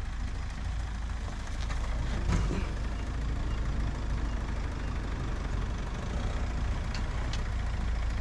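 An off-road 4x4's engine running steadily at low revs as the vehicle creeps along, with a few faint clicks.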